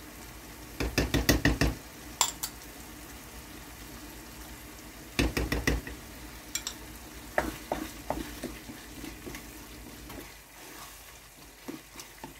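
Tomato sauce sizzling in a frying pan as it is stirred with a wooden spoon. Tomato paste is being added, with two quick runs of spoon knocks against the pan about one second and five seconds in, then a few lighter clicks.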